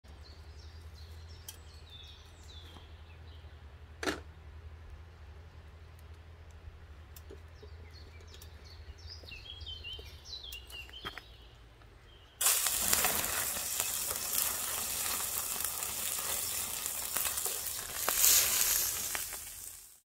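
Faint birdsong over a low hum, with a single sharp click about four seconds in. Then, a little past halfway, a frying pan on a wood-burning rocket stove starts to sizzle loudly as food goes into the hot pan; the sizzle cuts off just before the end.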